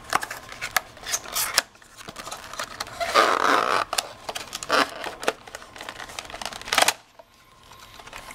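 Cardboard box being opened and a clear plastic packaging tray slid out of it by hand: irregular clicks and rustles of paperboard and plastic, a longer scraping rustle about three seconds in, and a sharp plastic crackle near the end.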